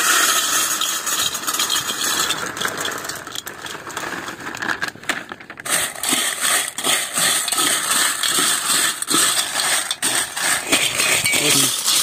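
Dry chocolate cereal flakes poured from a plastic packet into a stainless steel bowl, a steady rattling rush for about the first five seconds. Then a steel spoon stirs and scoops through the dry cereal, with repeated clinks and scrapes against the bowl.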